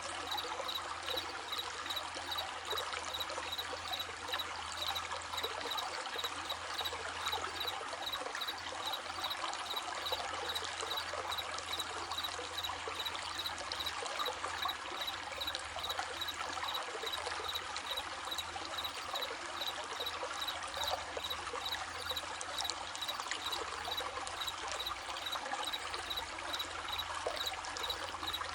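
Running stream babbling steadily over stones, with crickets chirping in an even, repeating rhythm behind it.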